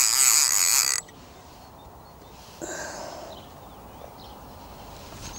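Centrepin reel's ratchet buzzing in a rapid stream of clicks as line is drawn off the drum, stopping sharply about a second in. A brief, fainter sound follows near the middle.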